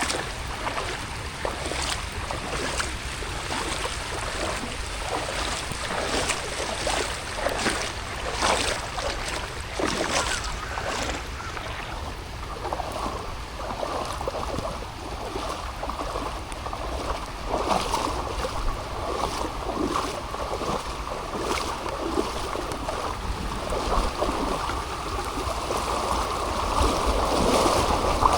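Rain falling with irregular patters and splashes; about halfway in a steadier rushing sound builds and is loudest near the end.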